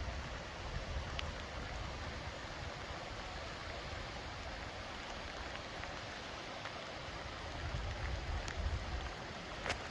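Steady hiss of rain with wind rumbling on the microphone, gustier about eight seconds in, and a few sharp ticks, the loudest near the end.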